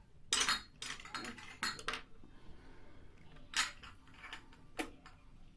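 Small food and spice containers being handled on a table: a quick run of clicks and clatter in the first two seconds, then two single knocks later on.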